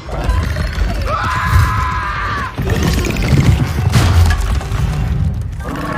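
Film action sound effects: smashing and shattering crashes with heavy booms, over the film score. A held high tone sounds from about one to two and a half seconds in, and the loudest crash comes about four seconds in.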